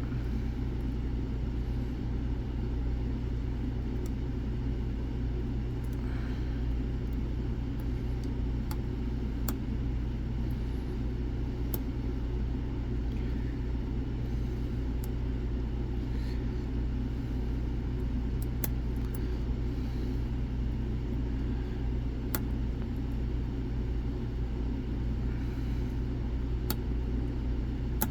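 Light, irregular clicks and faint scraping of a lock pick working the top pins of an M&C Matrix 3-star lock, over a steady low background rumble.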